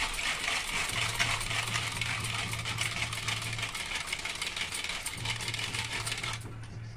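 A mathani hand whisk churning kadhi batter of gram flour, sour curd and water in a metal pot: fast splashing with metal clattering against the pot, stopping a little before the end.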